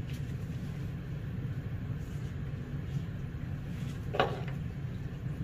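A steady low hum, with one short sound about four seconds in.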